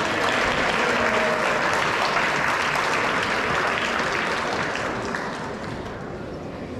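Crowd applauding as a student walks out, steady at first and dying down over the last two seconds.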